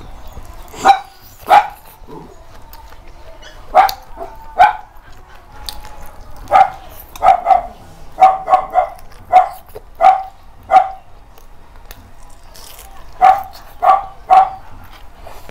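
A dog barking repeatedly: about sixteen short, sharp barks in irregular groups, with a run of quicker barks in the middle.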